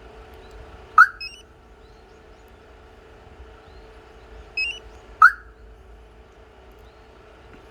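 24-volt remote-start car alarm on a Hyundai Trago concrete mixer truck sounding two short, loud siren chirps about four seconds apart, each accompanied by a few softer stepped beeps, over a steady low hum.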